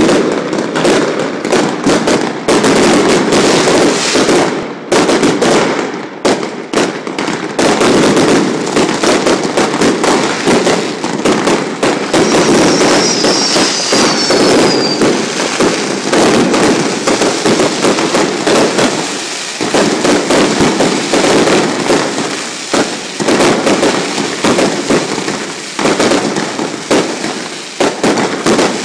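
Fireworks going off in a continuous rapid barrage of bangs and crackles, many a second, with a brief falling whistle about halfway through.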